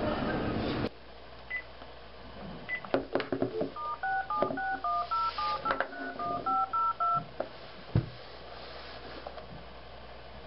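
Telephone keypad dialing a number: a quick run of touch-tone (DTMF) beeps, about four a second for some three seconds, each beep two tones at once. A few clicks and short single beeps come just before the run.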